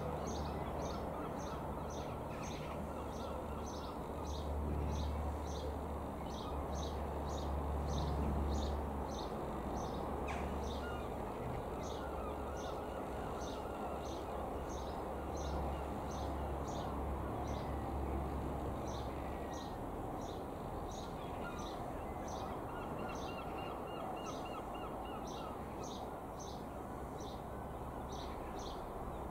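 Distant low drone of a Mooney M20K's single piston engine passing overhead, swelling a few seconds in and then slowly fading. A small bird chirps repeatedly over it, about twice a second.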